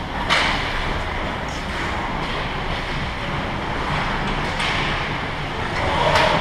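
Ice hockey rink game sound: a steady noisy rumble of the arena, broken by a few short sharp sounds of play on the ice. The loudest comes shortly after the start, with more near the end.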